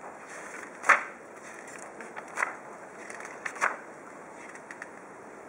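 Paper pages of a spiral-bound manual being turned and handled: a few short, crisp rustles, the loudest about a second in.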